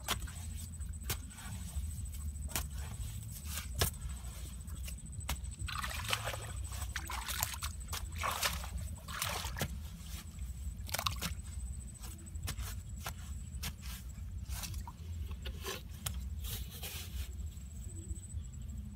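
Flat wooden stick digging into wet clay mud: irregular knocks and scrapes with wet sloshing as mud is dug out, busiest a little past the middle, over a steady low rumble.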